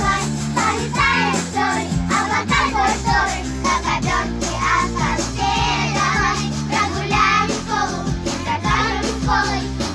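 A child singing a song over a backing track.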